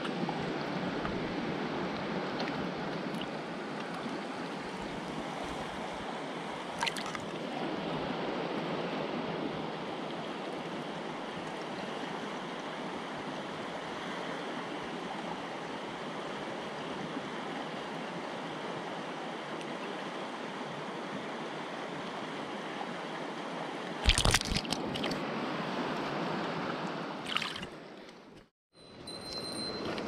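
A shallow mountain stream flowing and trickling over stones, a steady rush of water. A few brief knocks close by cut through it, the loudest about 24 seconds in.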